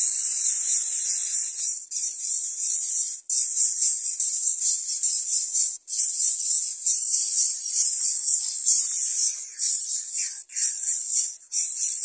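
Greater coucal nestlings begging with a harsh, continuous rasping hiss, broken by short pauses every one to three seconds.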